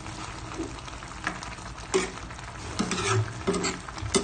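A cooking utensil stirring ginisa tinapa with ampalaya leaves in a metal pot, scraping and knocking against the pot several times in the second half, over a steady hiss from the hot broth.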